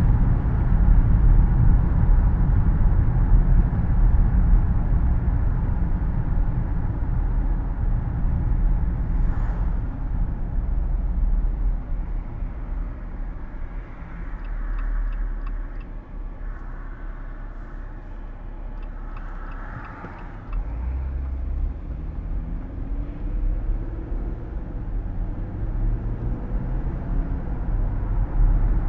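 Car cabin noise while driving: steady tyre and road rumble with the air-conditioning's even hiss beneath it. The rumble eases for a while in the middle, then the engine note rises as the car picks up speed again.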